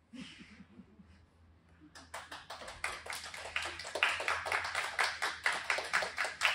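A small group applauding: scattered hand claps start about two seconds in and grow louder.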